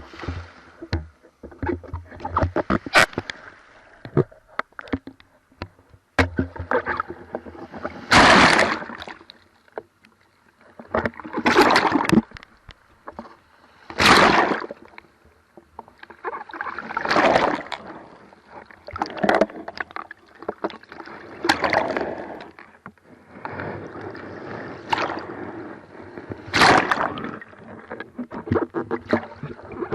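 Surf waves crashing and churning around an action camera in its waterproof housing, rising into a loud rush of water every two to three seconds with smaller sloshes and splashes in between.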